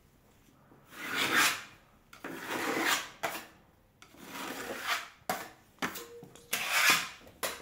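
Four long scraping strokes across a wall, each about a second, as the surface is worked over for filling and repainting.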